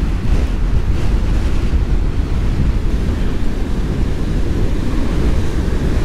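Heavy storm surf: large waves breaking and washing up the beach, with steady wind buffeting the microphone.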